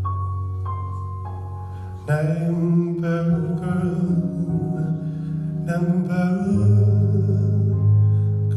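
Music: a held low note under a few high single notes, then about two seconds in it grows louder into a fuller passage with a voice singing.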